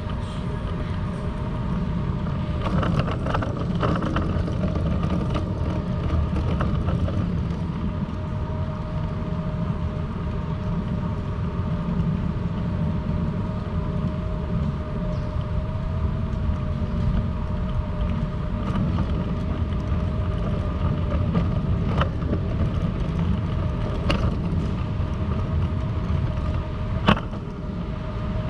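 City street ambience heard while walking: a steady low rumble of traffic and machinery with a constant hum over it, and a few sharp clicks in the last third.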